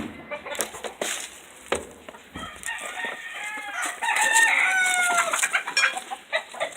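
Chickens clucking with scattered short calls, and a rooster crowing once, loudest from about four seconds in.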